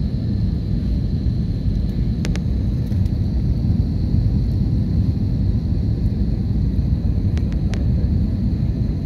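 Steady low rumble of engines and airflow inside an airliner cabin on approach with flaps extended, with a thin steady high whine throughout. A few faint clicks come about two seconds in and again near the end.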